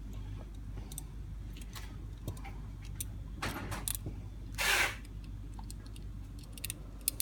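Scattered small metallic clicks and knocks of hands handling a Holley 94 carburetor as its top is worked loose, over a steady low hum, with a short rushing noise about four and a half seconds in.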